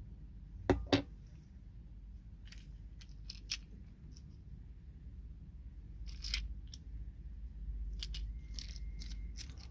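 Small hard plastic and metal parts of a camera mount kit being handled: two sharp clicks about a second in, then scattered lighter clicks and rustling.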